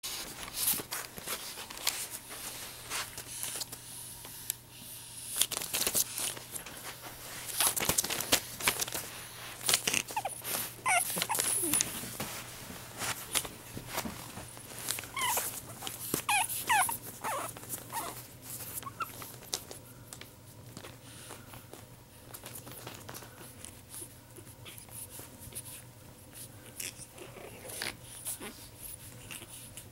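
Pug puppy whining in short, high, sliding whimpers, clustered in the middle of the stretch, with frequent rustling and clicking noises throughout.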